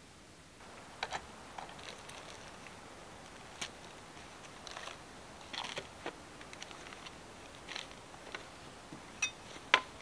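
Campfire crackling: irregular sharp pops and snaps over a low hiss, with the two loudest pops near the end.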